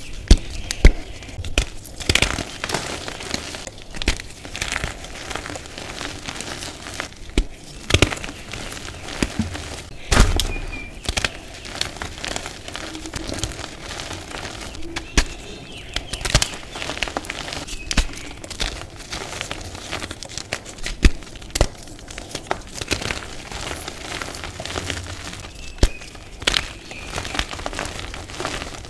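Reformed gym chalk crushed and crumbled in bare hands: irregular crunches and sharp snaps as chunks break, with soft powdery crumbling between them. The loudest snaps come about a second in and about ten seconds in.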